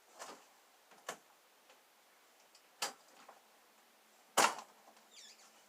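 Four scattered, sharp clicks or knocks at uneven intervals, the loudest about four seconds in.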